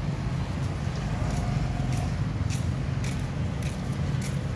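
Steady low rumble of road traffic, with sharp crackles from a small fire of burning joss paper, coming from about a second in.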